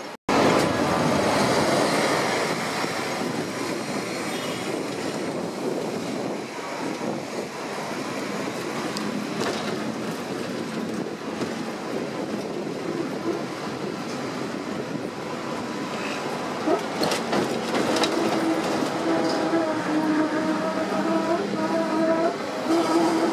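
Hong Kong double-decker tram running along its tracks, a steady rattling rumble of wheels on rail with street traffic around it. There are a few sharp clicks past the middle, and a pitched whine comes and goes near the end.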